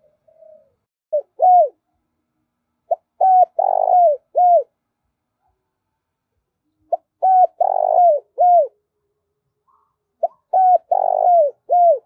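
Spotted dove cooing: a short two-note fragment, then three full phrases a few seconds apart. Each phrase is a run of short coos around a longer, rougher middle note.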